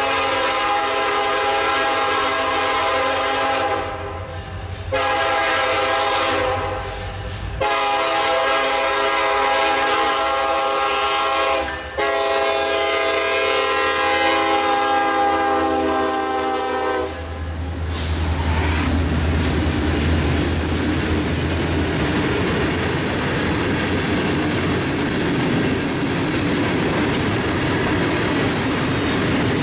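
Norfolk Southern diesel freight locomotive sounding its air horn in four blasts for a grade crossing, the horn stopping about seventeen seconds in as the locomotive passes with a low engine rumble. Then freight cars roll steadily by, wheels clacking on the rails.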